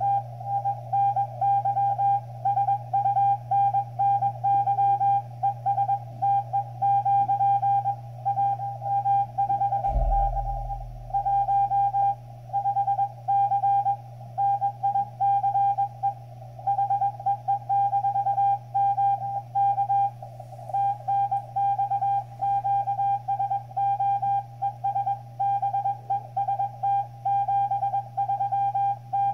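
Morse code (CW) from a Xiegu X6100 HF transceiver: a single mid-pitched tone keyed on and off in quick dots and dashes, over a steady low hum. A low thump comes about ten seconds in.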